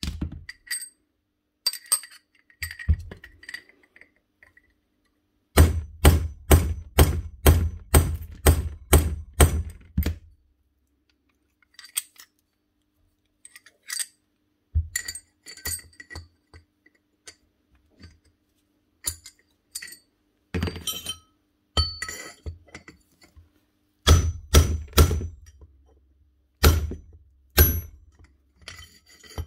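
Hammer blows on steel: runs of sharp, ringing metal-on-metal strikes, about two a second at their fastest, knocking at a jammed, cracked striker pin to free it from a rotary hammer's tool holder.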